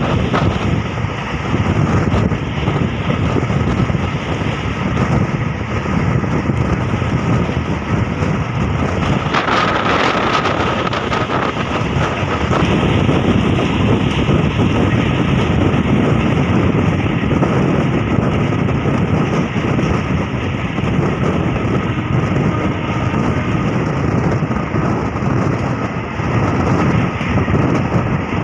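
A moving MEMU electric passenger train running along the track, heard at its open door: a steady, loud rumble of wheels on rail mixed with rushing air. About ten seconds in it turns briefly brighter and hissier, with a faint high whine.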